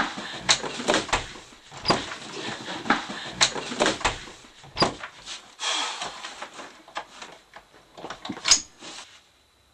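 Irregular knocks, bumps and rustling of people shuffling about, thinning out and dying away near the end.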